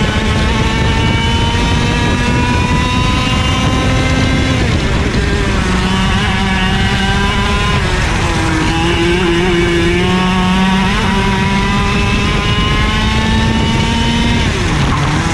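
IAME KA100 100cc two-stroke kart engine racing, heard from the driver's seat. Its revs climb steadily along each straight and fall away sharply when the driver lifts for corners: about four and a half seconds in, near eight seconds, and near the end. Wind rushes over the microphone underneath.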